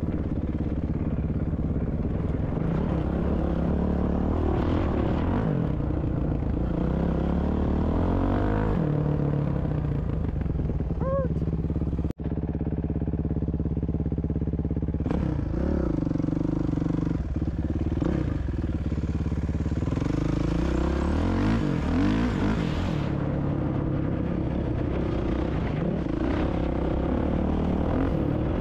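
Dirt bike engine running under way, its note rising and falling as the throttle is opened and closed, with a brief cut-out about twelve seconds in.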